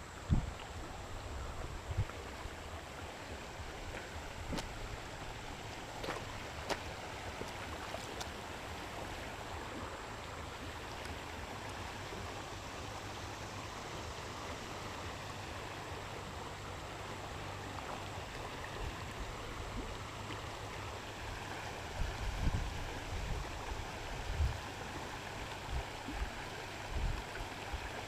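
Steady rush of water flowing from the dam. Near the end, several low thumps come through.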